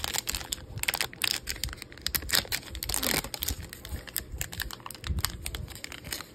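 Foil trading-card pack being crinkled and torn open by hand: a dense run of sharp crackles, with one longer tear about three seconds in.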